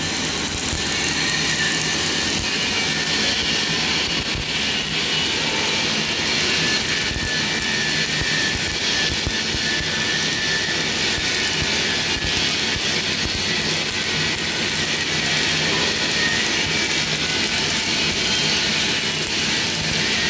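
Electric arc welding on steel plate: the arc gives a steady, continuous crackling hiss with no breaks.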